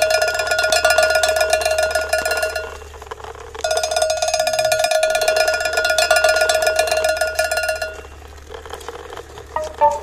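Small electric toy motor driving a homemade toy dump truck, running with a steady high-pitched buzzing whine. It cuts out for about a second near three seconds in and stops about eight seconds in.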